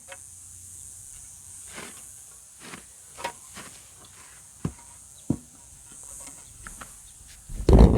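Scattered light knocks and clicks of metal engine parts and tools being handled, with a louder clunk near the end, over a steady high hiss.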